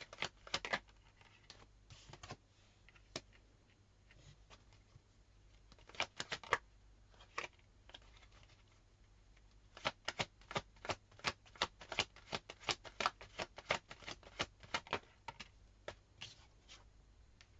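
Tarot cards being handled and shuffled: sharp clicks and taps in short bursts, with a quicker run of clicks from about ten seconds in until about fifteen.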